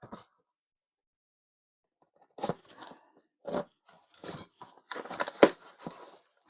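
Packaging being handled and pulled open: irregular crinkling and tearing noises that start about two seconds in, loudest near the end.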